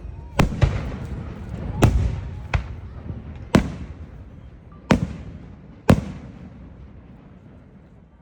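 Aerial fireworks bursting: about seven sharp bangs over six seconds, each followed by a fading rumble, the last about six seconds in.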